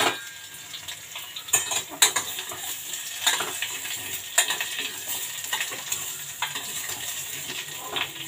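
Mango pieces frying in hot tempered oil in a small steel pot: a steady sizzle, with a metal spoon scraping and clinking against the pot about once a second as they are stirred.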